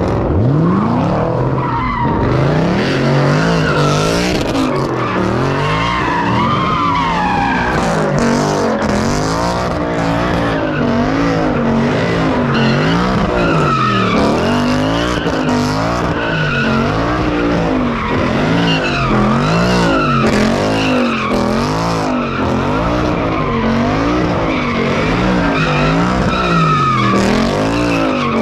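A car doing donuts: its engine revs up and down in an even rhythm about once a second while the rear tires squeal and screech as they spin on the pavement.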